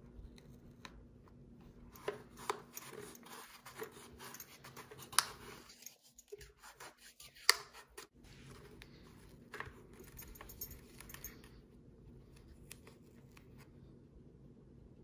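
Hands pressing Velcro pads into the speaker recesses of a motorcycle helmet's liner: scratchy handling and rubbing noise with several sharp clicks, the two loudest about five and seven and a half seconds in. The noise stops a little after eleven seconds.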